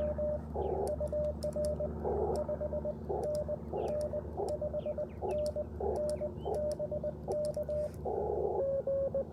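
Morse code from an Icom IC-705 ham transceiver: a steady beep near 600 Hz keyed on and off in dots and dashes, with the light clicks of the paddle key and short patches of receiver hiss between characters. Near the end a slightly lower-pitched, strong CW signal from another station comes in without the key clicks.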